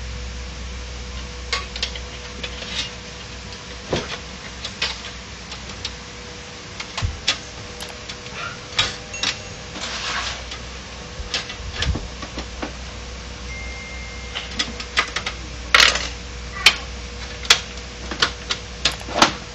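Irregular clicks, taps and clatter of an HP LaserJet 1010's casing panels and parts being handled and fitted back onto the printer, with the loudest, most frequent clicks near the end.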